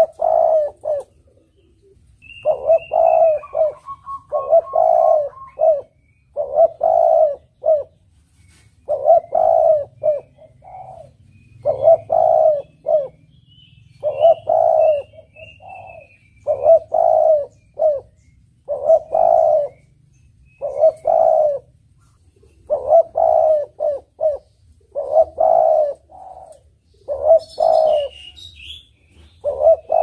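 Spotted dove (tekukur) cooing over and over, one short phrase of several coo notes about every two seconds. Faint chirps from small birds come in now and then.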